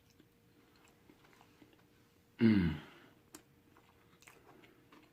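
Close-up chewing of a cheeseburger, with faint scattered mouth clicks. About two and a half seconds in comes a short voiced sound falling in pitch, the loudest thing here.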